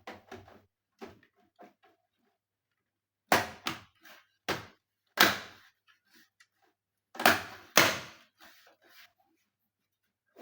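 Hard parts of an all-in-one desktop PC being handled during disassembly: a few light clicks, then about six sharp knocks and clacks in the middle stretch.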